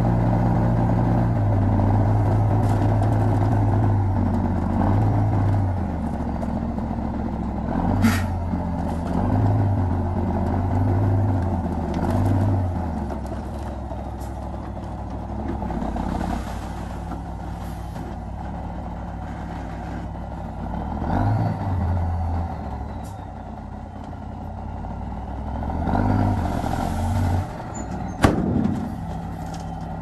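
Diesel engines of a small Komatsu bulldozer and dump trucks running, the engine note rising and falling with load. Twice there is hissing. A sharp knock comes about eight seconds in, and a louder one near the end.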